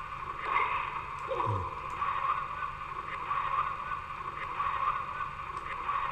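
Playback of a night-time field recording: steady hiss with a few faint short sounds, one sliding down in pitch about a second and a half in, which the listeners liken to someone clearing their throat and saying something.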